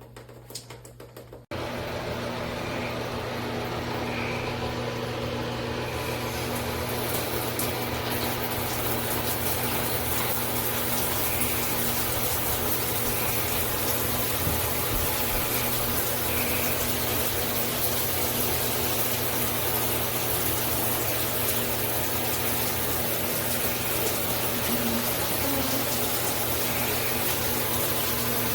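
Shower running: water spraying steadily from an AMORIX filtered rain shower head, coming in suddenly about a second and a half in and getting brighter a few seconds later, with a faint steady hum underneath.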